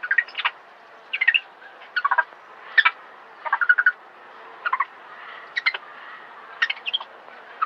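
A macaque's short, rapidly pulsed distress calls, about a dozen at irregular intervals of roughly half a second to a second, while a python has hold of it.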